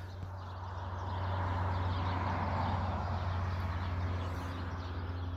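Light propeller aircraft flying over: a steady low drone with a rushing noise that swells about a second in and then slowly fades. Birds chirp faintly in the background.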